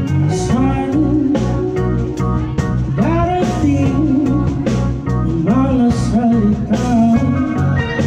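Live band playing a song with a male vocalist singing into a microphone over keyboards, guitar and drums with a steady beat.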